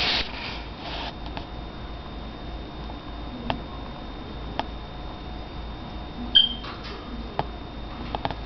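African grey parrot making a few sharp, scattered clicks and one short, high whistle about six seconds in, which is the loudest sound.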